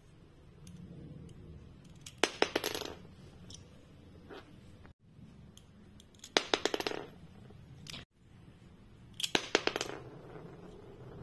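A small yellow plastic toy piece hits a wooden floor and clatters, bouncing in quick, quickening clicks until it settles. This happens three times.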